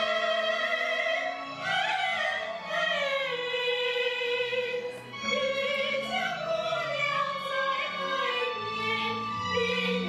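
A women's vocal ensemble singing together in harmony, with long held notes that slide in pitch and short breaks between phrases about two and five seconds in.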